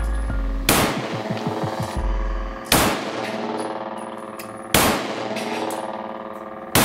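Four single gunshots about two seconds apart, fired at a steel plate rack, knocking the plates down one by one.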